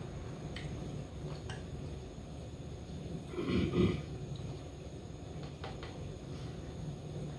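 A dog gives one short, low bark or grunt about three and a half seconds in, over a steady low background hum, with a few faint clicks.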